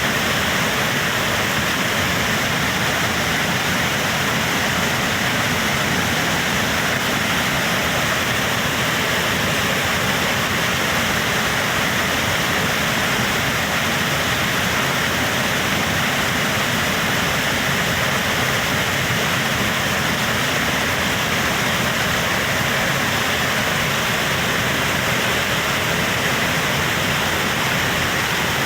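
Waterfall rushing steadily: a constant, even roar of falling water.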